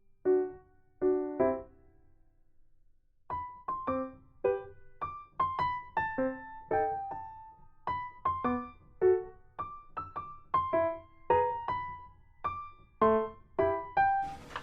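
Background piano music: single notes and small chords, each fading after it is struck, with a short pause about two seconds in before the melody carries on.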